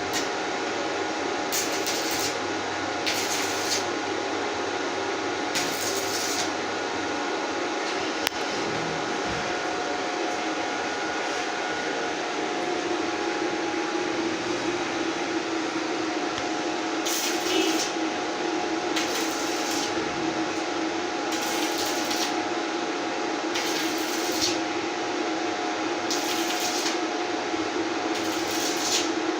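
Can-sealing machine running steadily with a hum. A short hissy burst comes about every two seconds, with a pause of about ten seconds in the middle.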